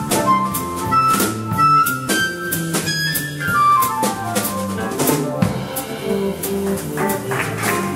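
Live jazz combo playing an instrumental passage: drum kit strokes on snare, bass drum and cymbals under a melody of quick stepwise runs and a low bass line.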